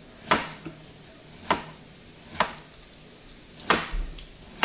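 Chef's knife slicing through a cucumber and knocking on a wooden chopping board, one sharp knock per cut, about five slow, unevenly spaced cuts with a quick pair near the end.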